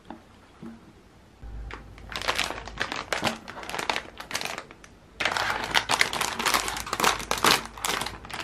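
Plastic snack wrapper crinkling as it is picked up and handled, then a louder, longer spell of crinkling from about five seconds in as the packet is pulled open.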